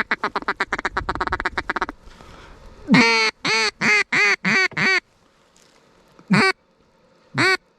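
Duck call blown in mallard hen style: a fast chattering feeding chuckle for about two seconds, then a loud descending series of six quacks, then two single quacks near the end.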